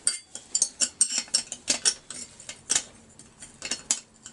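Irregular sharp metallic clicks and clinks of a hex key working in a chainsaw's cylinder bolts as they are tightened, several a second with a short pause in the second half.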